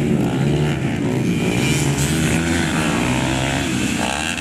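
Modified underbone racing motorcycle engines revving, their pitch shifting up and down, with a rising rev near the end.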